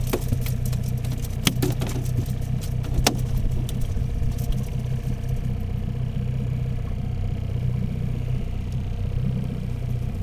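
Boat's outboard motor running steadily with a low hum. In the first few seconds, a few sharp clicks of a metal lure and hooks being handled in the landing net.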